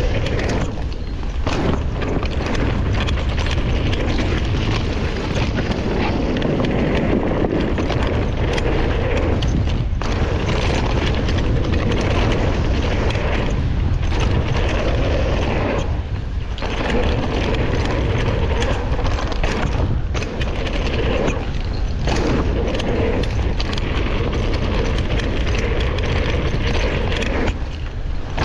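Wind buffeting the microphone and knobby tyres rolling over a dirt trail on a fast mountain-bike descent: a loud, steady rumble that eases off briefly several times.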